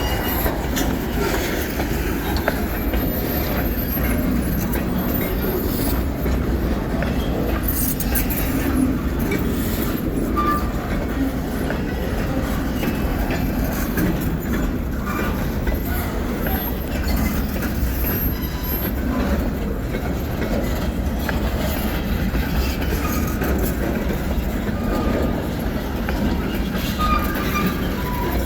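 Freight train cars of the Escanaba & Lake Superior Railroad rolling past at speed: a steady rumble of steel wheels on the rails, with clickety-clack and a few brief wheel squeals.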